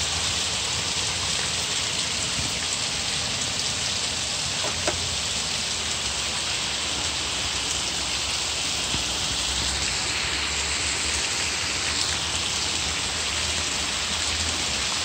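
Steady rain falling on the surrounding tiled roofs and street, an even hiss.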